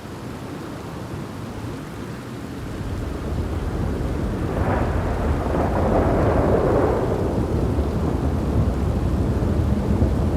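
Thunder rolling under steady rain. The rumble builds from about two seconds in, is loudest near the middle, then rolls on low.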